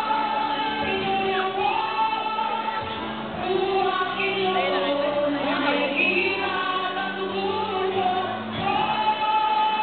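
A trio of two women and a man singing a song together into handheld microphones over musical accompaniment, amplified through a PA in a large hall.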